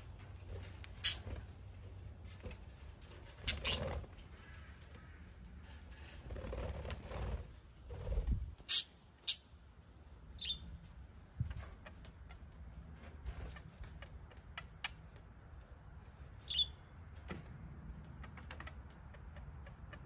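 Budgerigars giving a few short high chirps amid scattered sharp clicks and taps, the loudest two clicks coming about nine seconds in. A low rumble rises and fades between about six and eight seconds.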